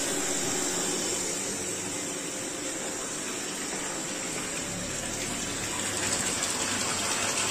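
Water gushing steadily from a pipe into a concrete storage tank, fed by a Shimizu jet pump that is running normally after its capacitor was replaced.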